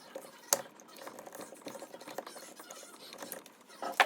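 Small handling clicks and two sharp snaps, one about half a second in and a louder one near the end, as the breakaway side fins of a dimmer switch are bent and snapped off.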